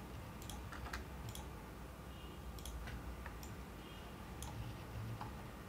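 Faint, scattered computer mouse clicks, about seven in all, spread irregularly over a steady low hum of room noise.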